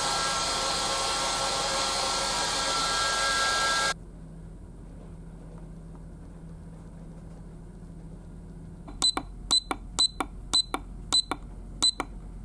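Hand-held hair dryer blowing, cut off suddenly about four seconds in. From about nine seconds in, a bedside alarm clock's buttons are pressed repeatedly, each press giving a short high beep, about two a second.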